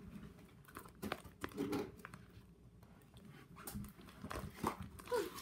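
Hands working slime and handling plastic containers on a table: scattered small clicks and crinkles at irregular times, with a short squeak near the end.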